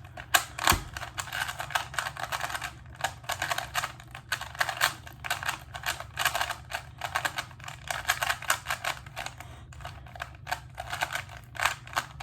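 An original Rubik's brand 3x3 cube being turned fast during a speedsolve: a dense, uneven stream of plastic clicks and clacks as the layers snap round, with a sharper knock under a second in.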